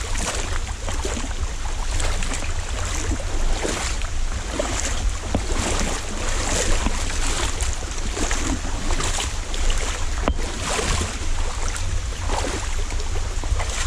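Water splashing as someone wades through a river in rubber boots, a splash with roughly each step, over the steady hiss of heavy rain. A low rumble of wind on the microphone runs underneath.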